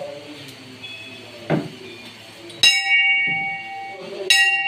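Hanging temple bell struck twice, about a second and a half apart, each strike ringing on with several clear tones that fade slowly. A single dull knock comes a little before the first strike.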